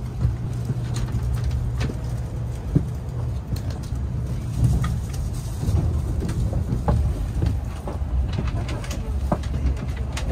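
Steady low rumble of a Shinkansen bullet train running, heard from inside the passenger cabin, with scattered faint clicks.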